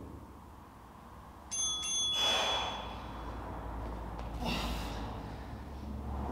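A workout interval timer's ringing chime about a second and a half in, marking the start of a work interval. It is followed by two heavy, breathy exhales as the exercise begins.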